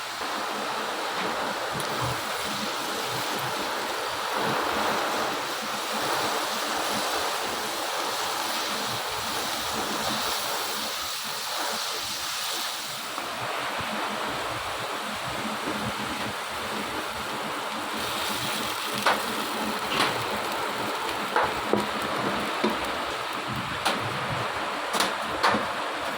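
Pan of carrot halwa cooking with a steady sizzle. Sharp taps of a spatula against the pan come in the last several seconds.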